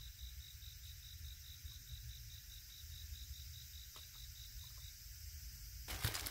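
Insect chirping in a fast, even pulse at one high pitch, about five or six chirps a second, over a faint low rumble. The chirping stops about five seconds in, and a louder rustling starts just before the end.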